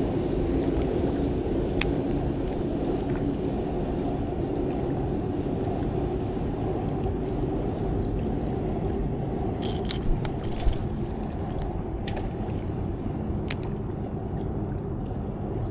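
Steady low outdoor rumble by the riverbank, with a few faint clicks and two short knocks a little after ten seconds in from the angler's rod and reel handling.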